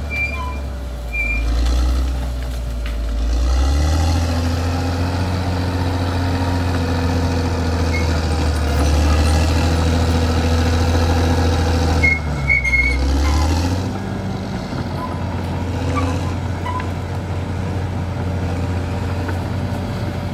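Caterpillar D6R XL bulldozer's diesel engine running under working load, its pitch shifting about four seconds in and again around thirteen seconds. The machine's backup alarm beeps briefly near the start and again around twelve seconds in.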